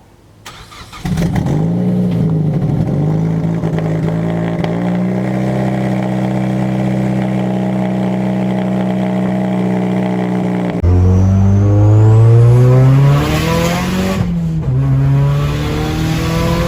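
Turbocharged 2.3-litre four-cylinder of a Mazdaspeed3 with a big BNR S4 turbo, external wastegate and straight-piped exhaust, starting about a second in with a brief flare and settling to a steady idle. Near the middle it changes abruptly to revving, the pitch rising, dropping and rising again.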